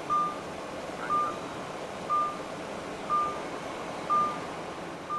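Electronic warning beep, one short single tone repeating evenly about once a second, over the steady noise of a car on the move.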